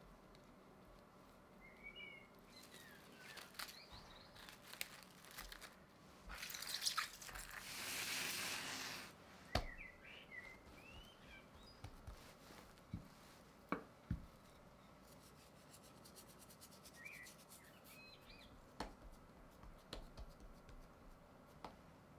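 Faint chirping of small birds in the background, in a few short bursts. A couple of seconds of loud rustling noise come near the middle, followed by a few sharp taps.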